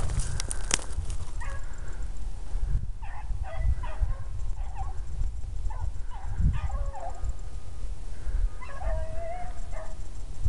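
A pack of young hounds baying while running a rabbit, with many short cries and a few longer drawn-out bays, the longest about nine seconds in. Wind rumbles on the microphone underneath.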